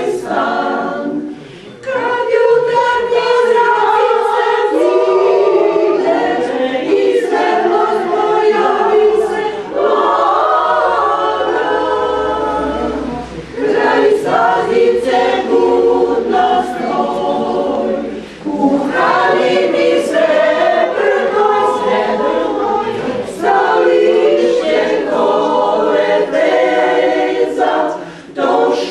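Small women's choir singing a cappella in parts, under a conductor, with a few brief breaks between phrases.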